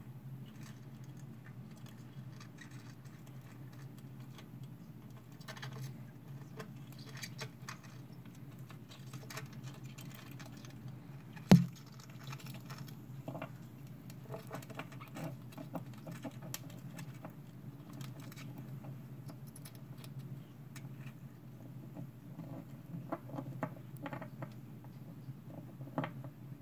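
Purple pincher hermit crabs (Caribbean hermit crabs) clambering over sandy substrate and against a plastic tank wall: scattered faint clicks and scratches from their legs and shells, over a steady low hum. One sharp knock comes a little before the middle.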